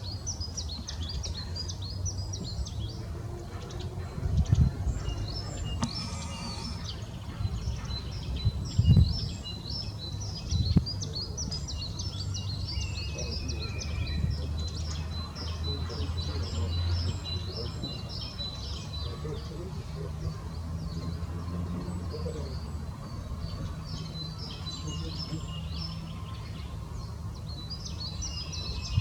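Many small birds chirping rapidly and continuously in high, short notes over a steady low rumble. A few louder low thuds come about four, nine and eleven seconds in.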